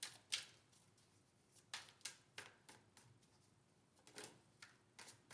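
Tarot cards being shuffled by hand: a faint, irregular scatter of short card flicks and snaps.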